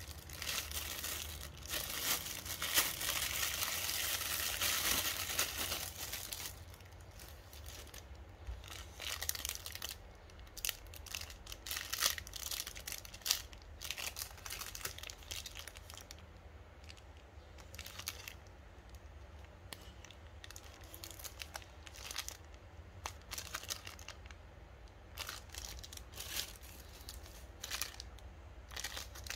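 Clear plastic bag and candy-bar wrappers crinkling as they are handled. A dense run of crinkling lasts about the first six seconds, then gives way to scattered short crinkles and crackles.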